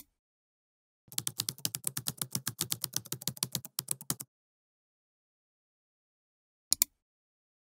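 Rapid typing on a computer keyboard for about three seconds, followed near the end by a quick double click.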